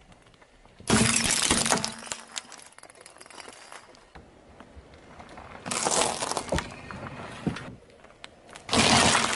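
Car tyre rolling over a row of small coloured light bulbs, which shatter with a burst of breaking glass about a second in. Two more crushing bursts follow: a plastic toy starfish pressed under the tyre around the middle, and a tray of eggs cracking near the end.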